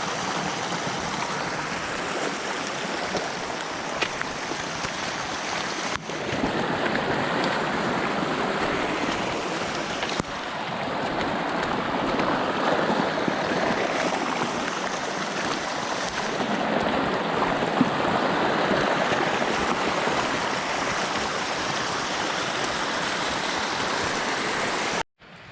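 Rushing water of a rain-swollen stream flooding the trail, a steady rush that shifts abruptly about six and ten seconds in.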